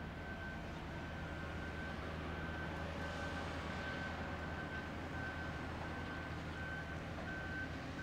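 A heavy construction machine's reversing alarm beeping at an even pace, about three beeps every two seconds, over diesel engines running.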